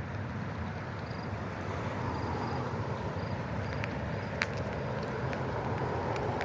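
Steady outdoor rumble and hiss, with a few sharp clicks and short high chirps over it.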